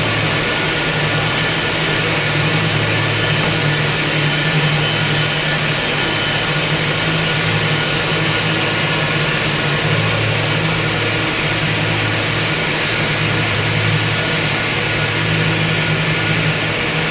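High-pressure fog misting system running: a steady low hum with an even hiss over it.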